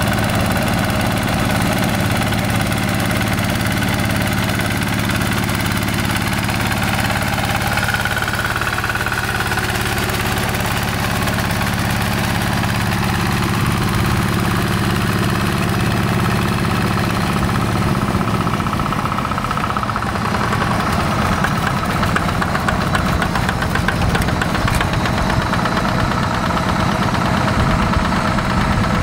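Yanmar TF85 single-cylinder diesel engine of a Quick G1000 hand tractor running steadily as the tractor's cage wheels work a flooded rice paddy. The engine note changes about two-thirds of the way through.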